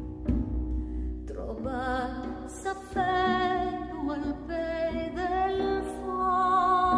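A woman singing a slow melody in long held notes with vibrato, coming in about a second and a half in. Underneath, the steady drone of a tamborina (Pyrenean string drum) is struck in an even beat, with the low beats of a tombak goblet drum.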